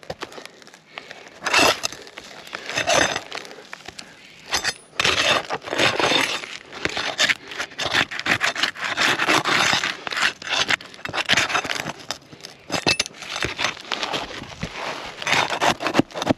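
Roofing nails being pried out from under lifted asphalt shingles: irregular scraping and crackling of the shingles, with sharp metal clicks, coming in repeated bouts.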